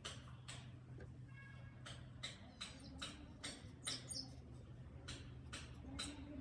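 A rapid series of short, sharp chirping clicks, about two to three a second in runs, with a brief higher twitter about four seconds in, over a steady low hum.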